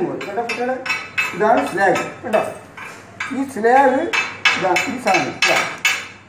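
Chipping hammer striking and scraping a steel plate to knock the slag off an arc-weld bead: sharp metallic taps and clinks, coming in a quick run a little over four seconds in.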